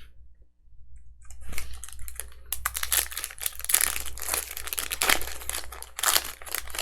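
Plastic wrapper of a baseball card pack being torn open and crinkled, with the cards clicking as they are handled. The crackling starts about a second and a half in and continues densely.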